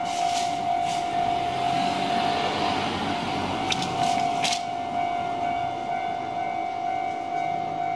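Japanese railway level crossing's warning bell ringing on one steady tone, over the rumble of a Keisei train that swells around the middle. A few sharp clacks come near the start and about four seconds in.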